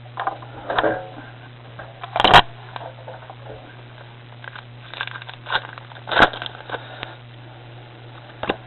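Foil wrapper of a Pokémon XY Furious Fists booster pack being torn open and crinkled: crackling rustles with two sharp tearing sounds, the loudest about two seconds in and another about six seconds in.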